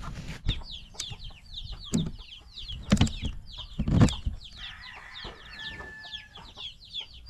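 Backyard chickens calling and clucking, with a rapid run of short, high, falling chirps throughout. Three loud thumps come about two, three and four seconds in.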